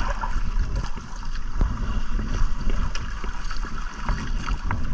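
Wind buffeting the microphone over water lapping at a small outrigger boat, with a few faint ticks.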